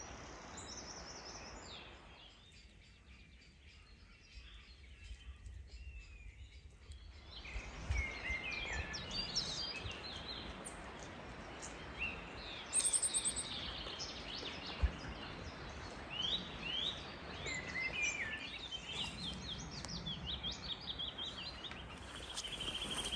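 Woodland birds singing and calling: many short chirps and trills from several birds, sparse at first and busier from about a third of the way in.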